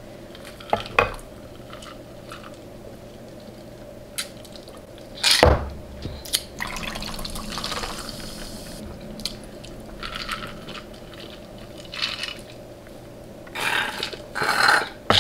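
Sparse wet mouth and eating sounds, sucking and smacking, with scattered soft clicks. A single thump comes about five seconds in.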